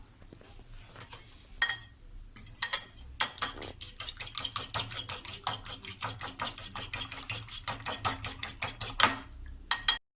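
An egg being beaten on a plate with cutlery: a few separate knocks, then rapid, regular clinking of metal on crockery at about five strokes a second, stopping briefly near the end.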